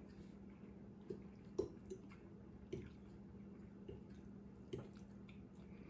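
Quiet eating: a handful of faint, short clicks of a fork against a bowl and soft wet mouth sounds, over a steady low hum.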